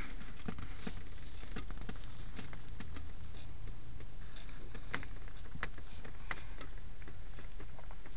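Handling noise from a handheld camera: faint scattered clicks and taps over a steady low hum.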